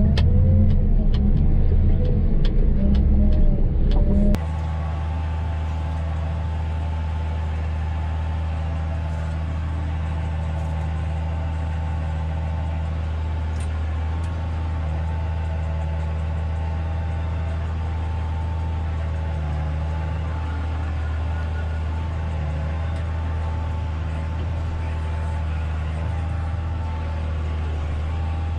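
Tractor engine running steadily, loud with some light clicks at first. About four seconds in, the sound drops to a quieter, very even low hum with a faint whine above it.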